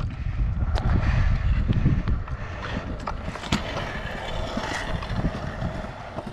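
Stunt scooter wheels rolling over concrete, a steady low rumble with wind buffeting the microphone and a few sharp clicks from the scooter.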